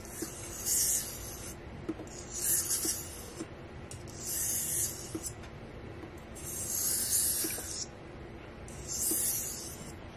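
BABA Japanese straight razor being honed on a wet green whetstone. Five strokes of the blade across the stone, each a hissing scrape about a second long, come roughly every two seconds.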